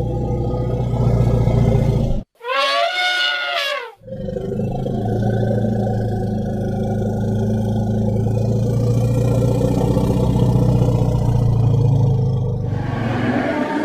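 Elephant calls: a long, low rumble, broken about two seconds in by a short, high trumpet call whose pitch bends, then the low rumble resumes.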